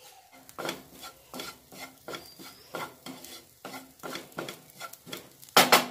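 Wooden spatula stirring onions and spice powders in a nonstick frying pan: quick repeated scraping strokes, about two to three a second, over a light sizzle, with one louder scrape against the pan just before the end. The powders are being toasted in the oil until their raw smell goes.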